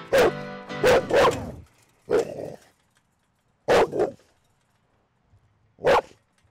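Young pit bull barking, about seven loud single barks at uneven intervals, three close together in the first second and a half, then a double bark near the middle and one more near the end.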